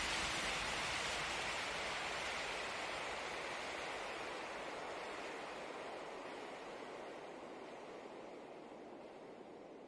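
A steady rushing noise, with no tone or rhythm in it, fading out slowly.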